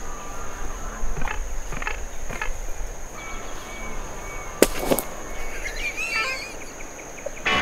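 Campfire crackling with scattered sharp pops, the two loudest about two-thirds of the way through, over a steady high insect trill. A short warbling bird call sounds near the end.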